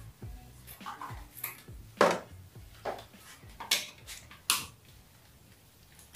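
Scattered light clicks and taps of wires and a plastic circuit breaker being handled in a breaker panel, with one sharper click about two seconds in; the handling noise stops about five seconds in.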